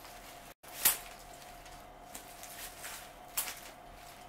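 Cut rose stems and leaves rustling and being set down on a paper-covered table, with two sharp crackles, one about a second in and one near the end, over a faint steady hum.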